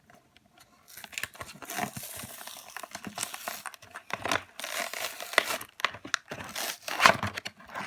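Toy packaging being torn open by hand: paper or cardboard tearing and plastic crinkling in uneven rustling crackles, starting about a second in, with the sharpest burst near the end.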